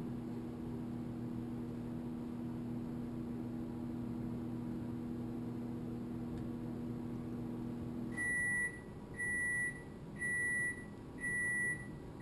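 A steady electric appliance hum cuts off about eight seconds in. It is followed by four high electronic beeps, each about half a second long and about a second apart.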